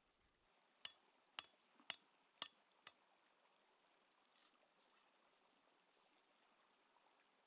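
A cleaver chopping lemongrass stalks against a flat stone: five sharp knocks about half a second apart in the first three seconds, then only faint handling.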